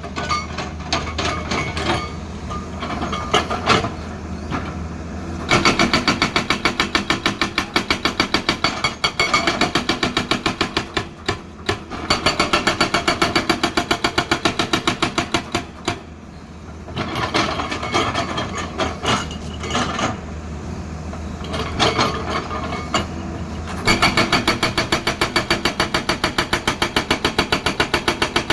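Hydraulic rock breaker on a Tata Hitachi excavator hammering hard stone in rapid, evenly spaced blows. The blows come in several runs of a few seconds with short pauses between, over the steady hum of the excavator's diesel engine.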